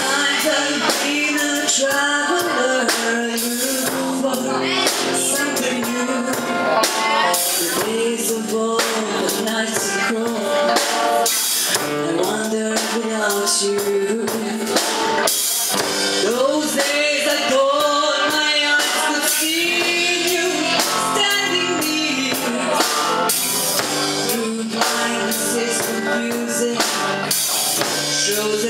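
Live band music: a woman singing into a microphone over a drum kit played with a steady beat.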